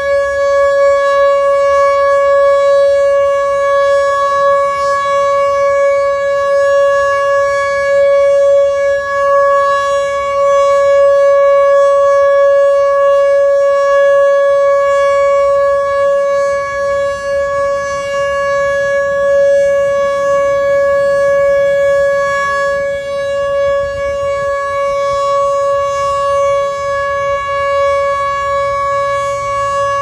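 Whelen WPS-2910 electronic outdoor warning siren sounding a loud, steady tone at one held pitch during a siren test.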